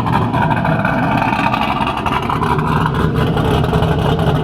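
2000 Pontiac Trans Am WS6's LS1 V8 idling steadily. The engine has a Brian Tooley Racing Stage 4 cam and runs through long-tube headers into a Borla cat-back exhaust.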